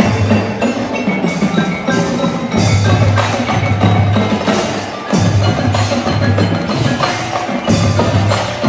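Indoor percussion ensemble playing: marimbas and other mallet keyboards with drums and bass drums, over deep held bass notes that come in repeating blocks, with sharp drum hits throughout.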